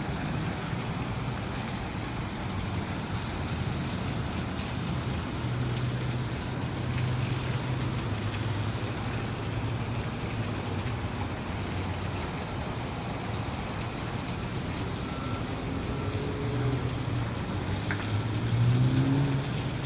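Steady hiss of rainwater falling and splashing, as water keeps coming down off a roof into a flooded parking lot. A low vehicle engine hum comes and goes underneath.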